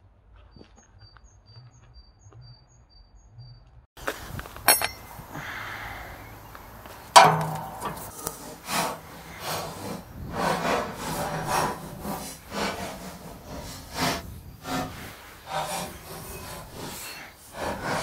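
Quiet for the first few seconds, then close handling sounds of hands and a four-way cross wrench at the wood chipper: rustling, scrapes and irregular knocks, the sharpest about seven seconds in.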